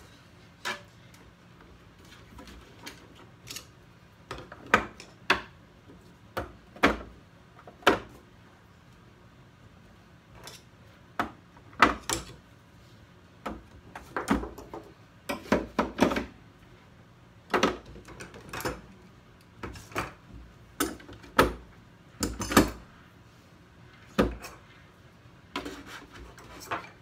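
Screwdrivers and other hand tools being dropped one at a time into the holes and slots of a plywood insert in a plastic Festool TB-2 open-top toolbox: irregular sharp clacks and knocks, one every second or so.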